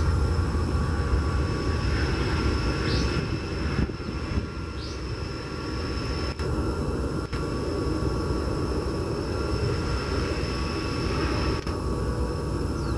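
Airbus A330 freighter's jet engines during the landing rollout: a loud, steady rumble with a high whine over it, easing a little about four seconds in.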